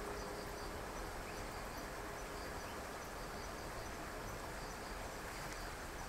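Outdoor field ambience: a steady hiss with faint, evenly repeated high chirps, typical of a calling insect. A low steady buzz, typical of a flying insect, stops within the first second.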